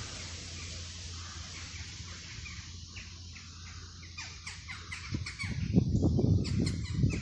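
Small birds chirping in the trees, a quick run of short calls from about two seconds in, over a steady hiss. In the last two seconds a louder, irregular low rumble takes over.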